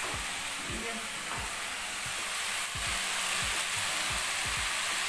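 Malabar spinach and dried shrimp frying in a wok, a steady sizzling hiss that grows a little louder a bit past halfway as strips of potato and eggplant are tipped into the hot oil.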